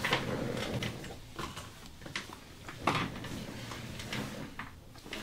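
Irregular rustling and soft knocks, with sharp clicks near the start and about three seconds in: hands working over a patient on a padded treatment table during a massage.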